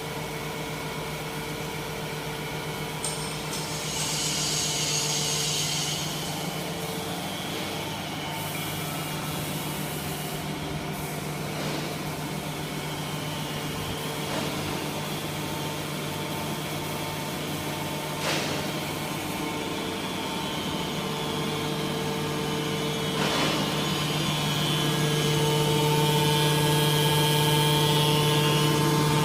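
Automatic aluminium can baler running, its hydraulic power unit giving a steady hum. A hiss comes about four seconds in, with a few sharp clicks later on, and the machine gets louder near the end.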